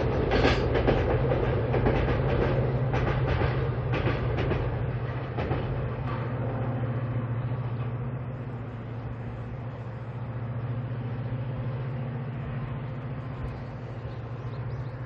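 Freight train crossing a steel girder bridge. Its wheels clack rhythmically over the rail joints for the first few seconds over a loud rumble. The clacking then gives way to a steady low rumble that fades as the train draws away.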